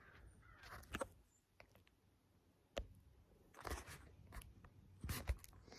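Faint, irregular rustling broken by a few sharp clicks.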